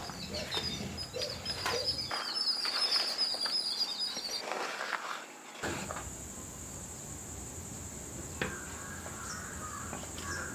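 Birds chirping high, with scattered light clicks and knocks of handling. After a change about five seconds in, a steady high-pitched hum with a few light clinks and a brief scrape.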